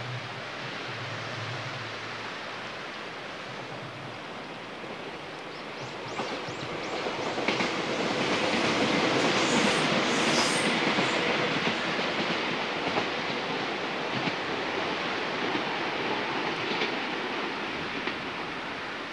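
Izu Kyuko Line train running past: its rail noise swells about six seconds in, is loudest a few seconds later with wheel clatter and a few high squeals, then slowly eases off. Steady wind and sea noise lies under it throughout.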